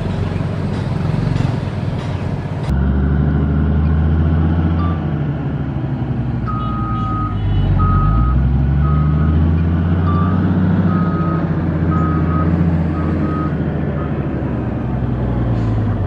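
Dresser motor grader's diesel engine running under load, its pitch rising and falling with the throttle, the sound changing abruptly about three seconds in. From about six seconds in, a backup alarm beeps roughly once a second for several seconds.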